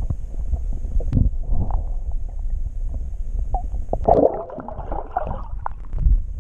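Muffled low rumble of water heard through a submerged action camera's housing, with a few clicks, as a pike is let go by hand. About four seconds in, a louder burst of sloshing as the pike kicks away past the camera.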